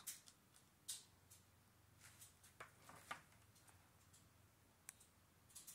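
Near silence with a few faint, scattered crinkles and taps, as a foil potato chip bag is handled.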